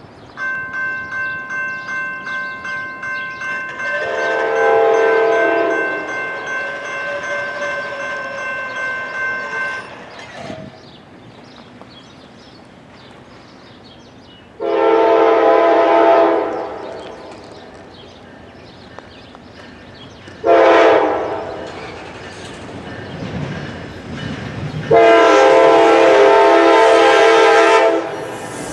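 Grade-crossing signal bell ringing about twice a second, then the air horn of a Norfolk Southern GE D9-40CW diesel locomotive sounding the grade-crossing signal: two long blasts, a short, and a final long blast as it reaches the crossing. Each blast is louder than the last as the locomotive nears.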